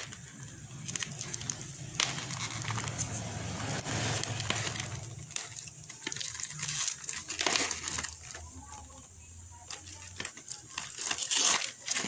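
Cardboard parcel and clear packing tape torn and crumpled by hand, irregular tearing and crackling.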